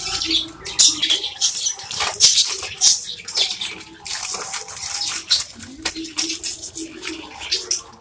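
Dry bird-seed grains rustling and pattering in a plastic-bottle feeder as a hand stirs through them, with grains trickling down from the inverted bottle's mouth. A string of short hissing rustles, on and off.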